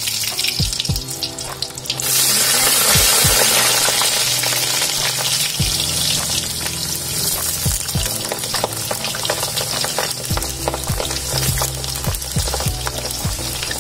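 Potato slices deep-frying in a wok of hot oil: a loud, steady sizzle with crackling pops. The sizzle dips briefly about a second in and comes back strong at about two seconds.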